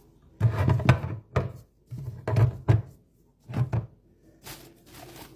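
A run of knocks and thuds as grocery items are handled and set down on a hard surface, the loudest in the first three seconds.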